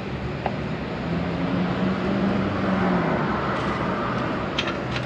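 A motor vehicle passing by, its engine hum swelling and then fading, with a few sharp clicks near the end.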